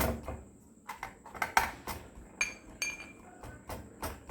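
Pestle pounding whole spices, ginger and tulsi leaves in a mortar, crushing them coarsely: a run of separate strikes about two a second, some with a short metallic ring.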